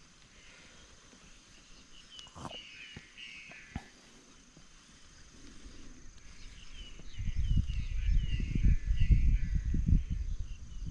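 Small birds chirping in short repeated calls, in two spells. In the second half a loud low rumble comes in and covers everything else.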